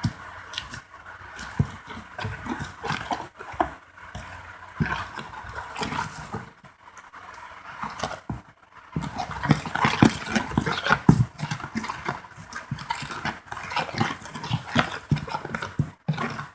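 Homemade slime being stirred and worked in a bowl: irregular sticky clicks and squelches, busier and louder from about nine seconds in.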